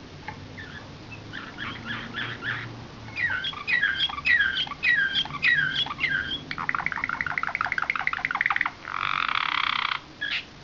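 Slavujar (nightingale-song) canary singing a phrased song: a few short chirps, then a run of downward-sliding whistles about three a second, a fast trill about two thirds of the way in, and a dense rolling, buzzy tour near the end.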